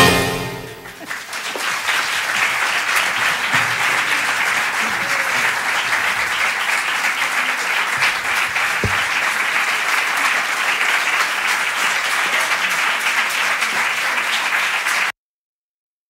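The last acoustic guitar chord of a song dies away, and an audience breaks into steady applause, which cuts off suddenly just before the end.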